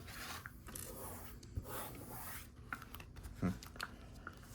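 Light rubbing and a few small clicks of LEGO plastic pieces being handled and pressed into place.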